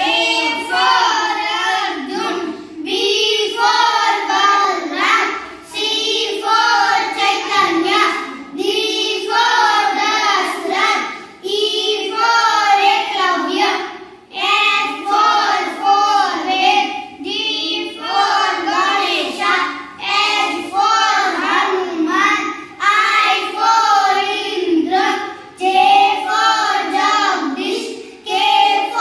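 Four young schoolchildren chanting a devotional A-B-C-D alphabet rhyme together in a sing-song voice, in short rhythmic phrases with brief pauses between them.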